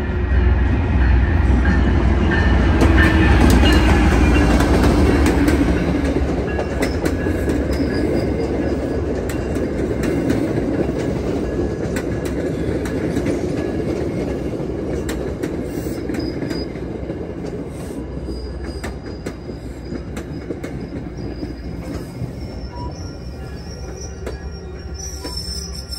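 MBTA commuter rail train passing close by. A deep rumble is loudest in the first few seconds and then slowly fades. Wheels click over the rail joints, and a thin high-pitched wheel squeal runs through the later part.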